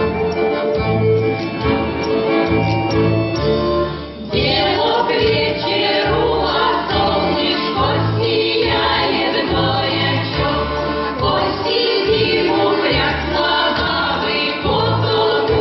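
Folk ensemble song over a steady beat: an instrumental introduction, then a choir of voices comes in singing together about four seconds in.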